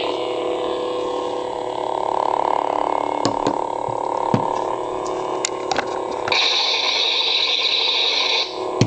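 Lightsaber sound board humming steadily with the blade lit, with a few sharp clicks in the middle. Near the end a louder, higher hissing effect sound plays for about two seconds, triggered from the hilt.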